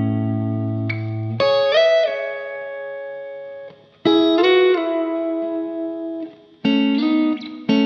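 PRS Silver Sky electric guitar through a Marshall Silver Jubilee amplifier and 4x12 cabinet, playing held chords and double-stops with string bends that rise in pitch. The notes ring out and fade between phrases.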